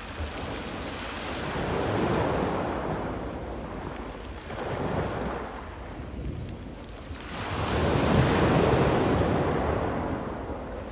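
Rough sea breaking on a stony beach in surges every few seconds, with the rattle of stones rolled by the waves; the biggest surge comes about eight seconds in.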